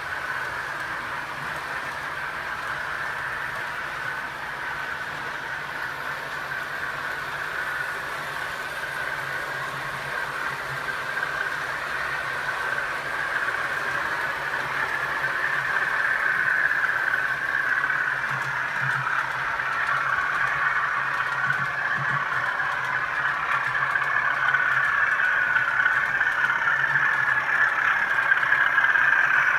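Model train running round a track helix: a steady whirring of motor and wheels on the rails with a low hum under it, growing gradually louder.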